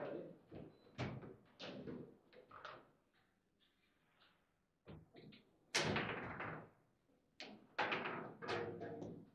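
Table football play: the hard ball struck by the plastic figures and banging off the table walls, with the rods knocking as they are spun and slid. Clusters of sharp hits, a pause of about two seconds in the middle, then more sharp shots, the loudest about six seconds in.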